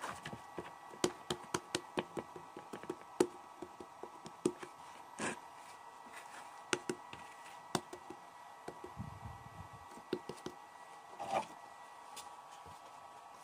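Hands kneading bread dough in a plastic bowl: irregular soft knocks and slaps of dough and knuckles against the bowl, busiest in the first few seconds and thinning out later, with a couple of short rubbing scrapes.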